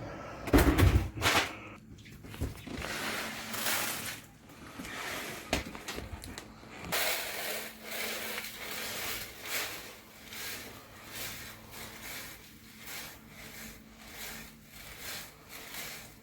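Irregular rustling and scraping of things being handled and moved about, with a few dull thumps in the first six seconds.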